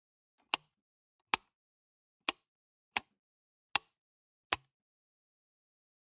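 Wall light switch being flicked, six sharp clicks each followed by a pause of about a second.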